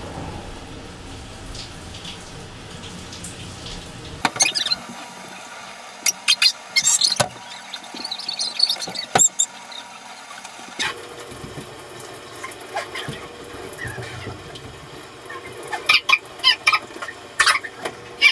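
Shower water running with a steady spraying hiss. About four seconds in, the sound goes fast-forward and the low end drops out, leaving short, squeaky, high-pitched bursts in clusters over the hiss.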